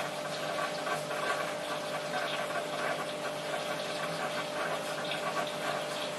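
Water running and splashing in a marine sump aquarium, over a steady hum from its pumps.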